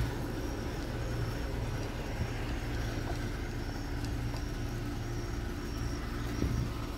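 A car's engine idling with a steady low hum.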